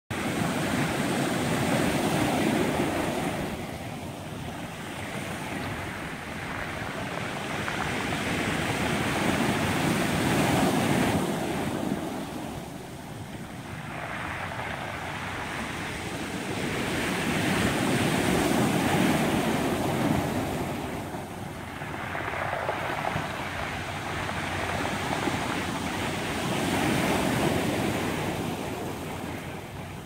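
Ocean surf washing onto a cobble beach, swelling and fading in slow surges about every eight seconds.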